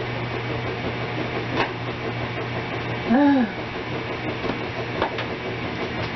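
Light clinks of a metal spatula against a griddle pan while food is turned, a couple of sharp knocks over a steady low hum, with a short voiced sound about three seconds in.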